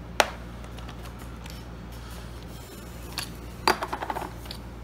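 Small metal parts clicking and clinking against a Holley carburetor's cast throttle base plate as they are handled: one sharp click just after the start, then a quick cluster of clicks a little past three seconds in. A steady low hum runs underneath.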